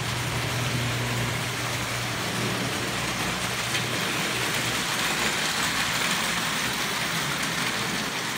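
Lionel O gauge toy trains running on three-rail tinplate track: a steady whirring rattle of motors and wheels, with a low hum that fades out a few seconds in.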